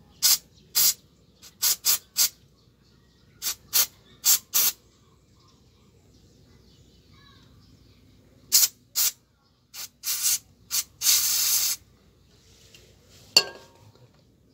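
Aerosol cleaner sprayed through a thin extension straw into a motorcycle throttle body in short hissing bursts: about nine quick squirts, a pause, then six more ending in one longer spray of under a second. A single sharp knock comes near the end.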